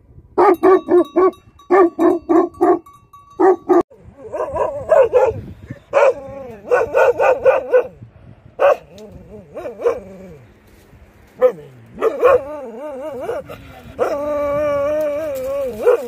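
Large livestock guardian dogs barking deeply in quick runs of several barks a second, then in longer drawn-out barks. Near the end comes a wavering howl held for about two seconds.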